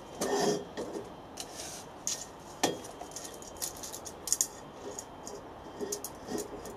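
Light metallic clinks, knocks and a short scrape from a steel bar being handled in a horizontal bandsaw's vice and measured with a steel tape measure; the saw is not running. There is a louder knock a little under three seconds in.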